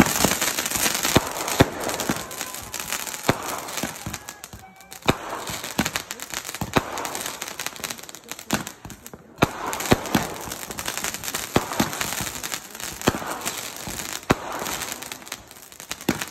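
Ground-launched fireworks going off: an irregular string of sharp pops and bangs over the steady hiss and crackle of spark fountains, with a brief lull about halfway through.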